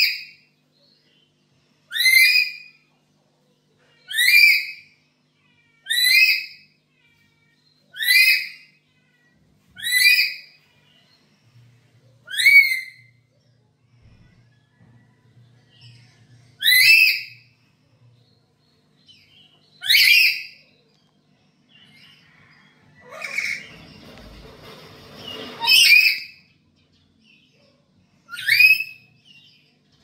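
Black-capped lory calling: short, loud, rising whistled calls repeated about every two seconds, with a longer pause midway. Near the end a rustling noise runs under a couple of the calls.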